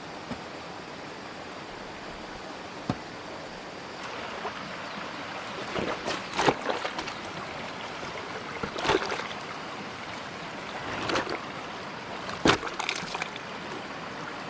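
Steady sound of flowing water, with a handful of short, separate knocks or splashes in the second half, the loudest about twelve and a half seconds in.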